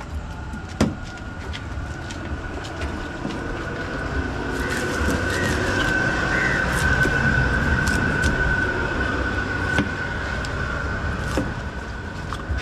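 A knife chopping and scraping fish on a wooden block, giving sharp knocks every second or two. Under the knocks runs a steady high whine and a low rumble that swells in the middle and eases off near the end.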